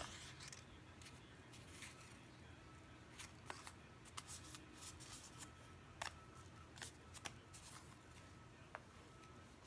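Faint, scattered rustles and light taps of a torn book page being handled and pressed down onto the linen in a wooden embroidery hoop.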